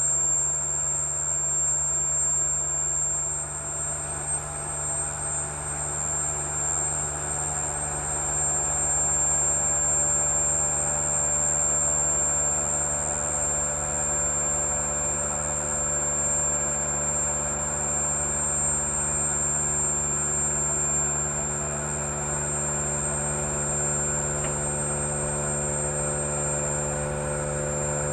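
Vacuum pump running steadily while it evacuates a sealed mixer vessel, a continuous machine hum with a constant high whine over it. The vacuum is still building.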